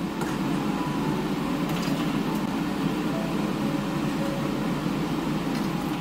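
Pakoras frying in hot oil: a steady low rushing sizzle, with a few faint clinks of the metal slotted skimmer about two seconds in.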